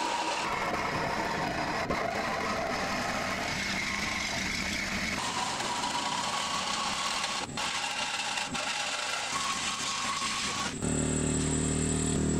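Corded reciprocating saw cutting through the steel frame of a mobile home, a loud rasping motor noise with a whine that shifts in pitch. Near the end the sound changes abruptly to a steadier, more even hum.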